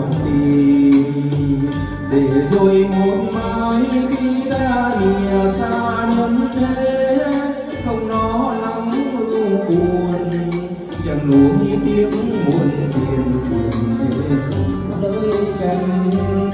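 A Vietnamese ballad with a singer's voice over the backing music, played through a home karaoke sound system with JBL 4012 speakers.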